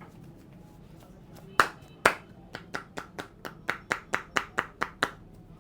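A massage barber's hands striking in a run of sharp claps. Two loud ones come about a second and a half in, then about a dozen quicker, lighter ones follow at four or five a second.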